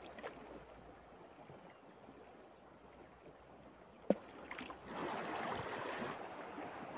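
Faint, steady sound of a shallow river flowing past rock, with a single sharp click about four seconds in and a louder rush of noise lasting about a second near the end.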